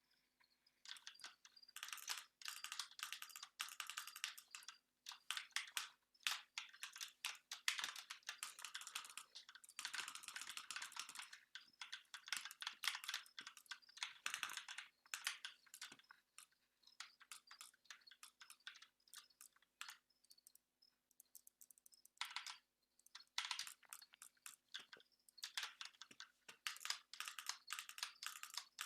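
Computer keyboard keys clicking in fast runs of typing, thinning to scattered clicks in the middle before picking up again.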